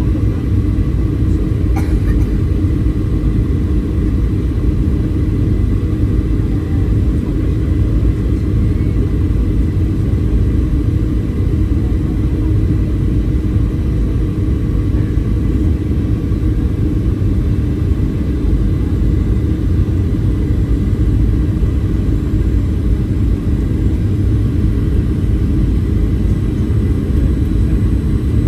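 Boeing 737-800 jet airliner making a loud, steady low rumble with a few faint steady tones above it.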